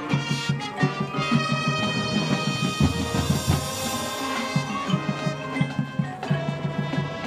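Marching band playing: sustained brass chords over a fast, busy drum pattern.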